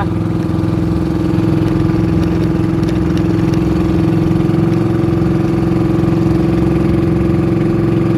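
The engine of a small outrigger fishing boat, heard from on board, running at a steady speed with an unchanging drone.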